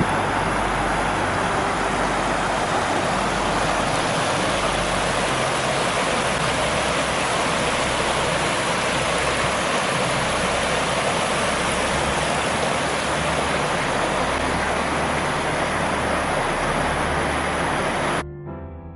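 Steady rush of a small rocky stream, water tumbling over stones, cutting off abruptly near the end.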